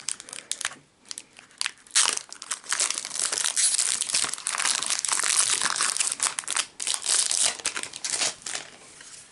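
Foil booster-pack wrapper being torn open and crinkled by hand, a dense crackling rustle that is heaviest in the middle.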